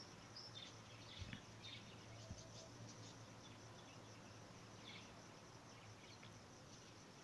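Near silence: faint background with scattered short high chirps and a couple of faint ticks about a second and two seconds in.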